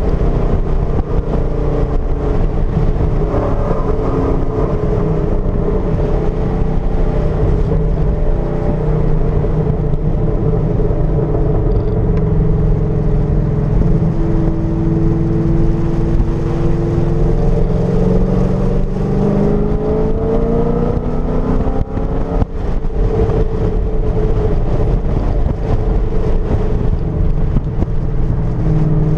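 C6 Corvette's V8 engine running hard at track speed, heard from inside the cabin. Its pitch rises and falls with the throttle, with a clear climb in revs about two-thirds through and a brief drop in level soon after.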